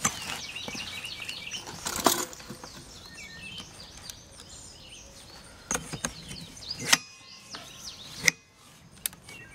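A few sharp clicks and knocks as a brush cutter's shaft is twisted and pushed into its handle coupling while the locking pin is coaxed into place. Birds chirp throughout.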